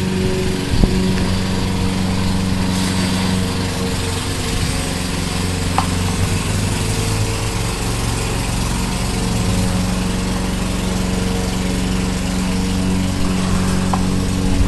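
Lawn mower engine running steadily at an even speed.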